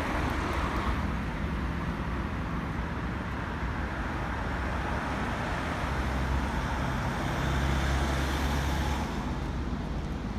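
Diesel bus engine running close by with road traffic passing; the low engine rumble swells, together with a hiss, from about seven to nine seconds in, then eases.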